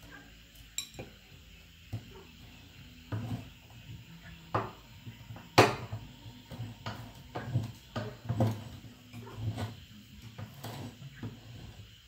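Manual metal meat grinder being worked with candy in it, its metal parts clanking and knocking irregularly, with one sharp, loudest knock about halfway through.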